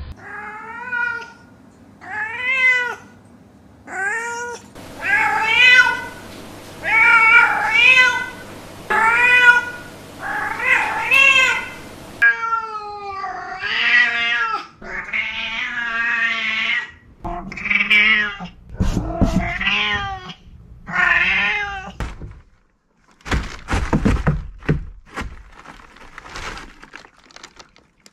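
Long-haired black domestic cat meowing over and over: about a dozen drawn-out meows, each rising and then falling in pitch, with short pauses between. Near the end there is a quick run of sharp knocks and thumps.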